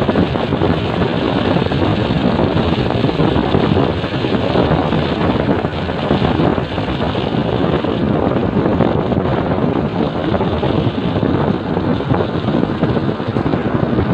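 Motorcycle riding along on the road: wind buffeting the microphone over the running engine, a steady, even rush of noise.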